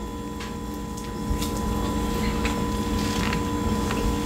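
Person chewing a mouthful of T-bone steak close to the microphone: soft wet mouth clicks and smacks now and then, over a steady hum.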